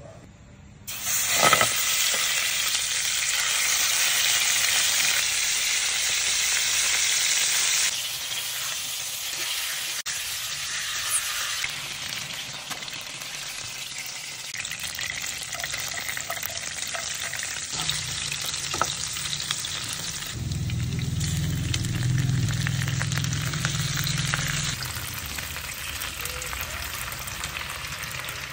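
Chicken pieces frying in hot palm oil in a frying pan: a loud, steady sizzle starts about a second in and carries on, changing in strength now and then. A low hum joins it for several seconds about two-thirds of the way through.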